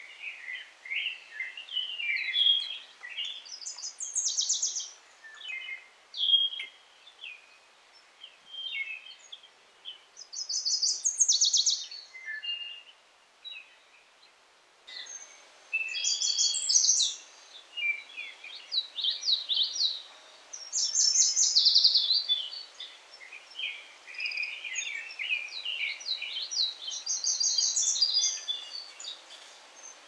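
Several woodland songbirds singing phrase after phrase, some phrases fast trills, over a faint steady hiss of a shallow stream and breeze in the trees.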